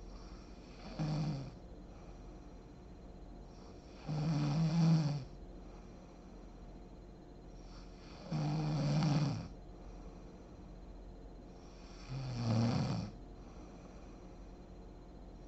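A sleeping woman snoring: four low snores, one every four seconds or so, each lasting about a second. The first is shorter and fainter than the rest.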